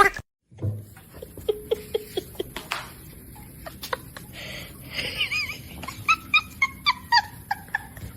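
A dog giving a run of short, high-pitched yips, coming about three a second near the end, after scattered clicks and knocks in the first half.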